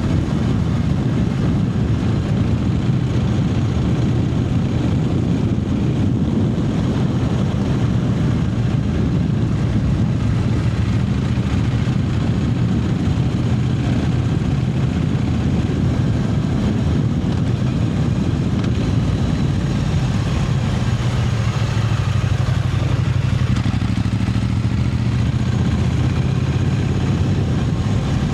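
Triumph Speed Twin 900's parallel-twin engine running steadily while the bike is ridden, its note shifting slightly in pitch about two-thirds of the way through.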